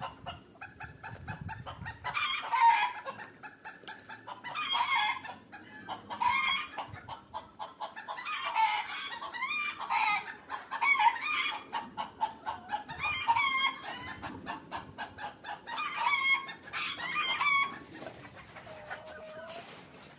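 Bantam chickens (Cochins and Wyandottes): roosters crowing again and again, each crow lasting a second or two, with clucking between. The calling dies down near the end.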